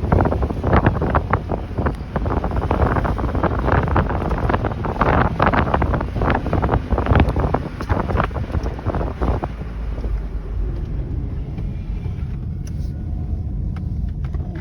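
Strong wind noise on the microphone with many sharp taps and knocks over it; both ease off about ten seconds in.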